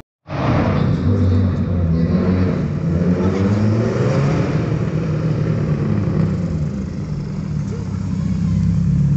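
Subaru Impreza rally car's flat-four engine revving hard as it approaches on the cobbles and sweeps past close by, its pitch rising and dipping as it changes gear, then holding steady and growing louder near the end.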